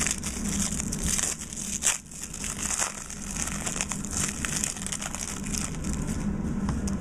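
Foil trading-card pack wrapper crinkling and crackling as it is handled and torn open by hand, with one sharper crackle about two seconds in.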